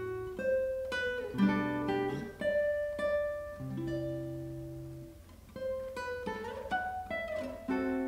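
Solo classical guitar playing: plucked melody notes and chords over ringing bass notes, softening briefly about five seconds in before picking up again.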